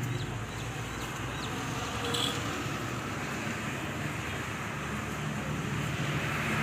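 Steady street background with a low, even engine hum from traffic.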